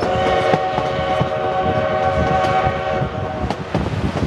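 Durango & Silverton narrow-gauge steam locomotive whistle blowing one long chord of several steady notes, cutting off about three and a half seconds in, over the rumble and clatter of the open passenger cars on the rails.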